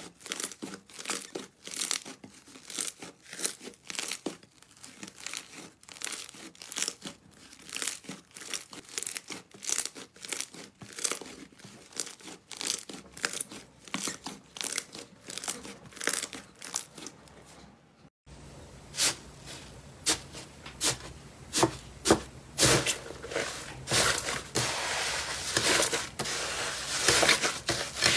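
Slime being pressed, poked and stretched by hand, making rapid irregular sticky pops and crackles. About 18 seconds in the sound cuts briefly and resumes busier and denser.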